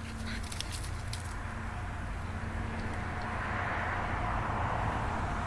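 A vehicle going by, its road noise growing louder over the last couple of seconds over a steady low rumble, with a few light clicks about half a second to a second in.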